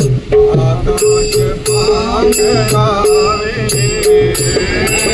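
Marathi devotional bhajan music in raga Bhairavi: a wordless, wavering melodic alaap over a steady drone, with a hand drum and small ringing cymbals keeping an even beat.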